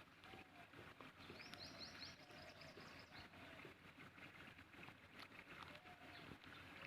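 Near silence with faint bird chirps, a short run of high chirps about a second and a half in.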